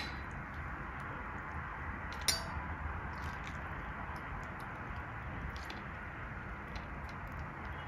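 Quiet handling as falooda noodles are put into a serving glass: a steady hiss with a few faint taps, and one sharp clink about two seconds in.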